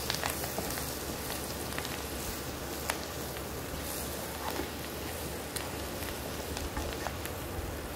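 Shredded cabbage and spices sizzling in oil in a nonstick kadhai as a wooden spatula stirs them: the masala is being fried into the cabbage. A few sharp clicks of the spatula against the pan stand out, one a little under three seconds in.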